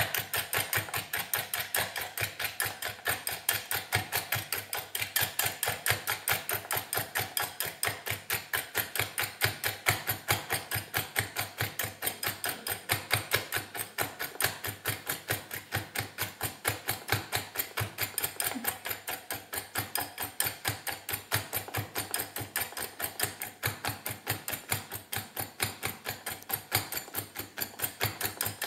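A wire hand whisk beating egg whites and sugar in a glass bowl, the wires clicking against the glass in a fast, even rhythm of several strokes a second. The whites are being whipped until they turn white and grow in volume.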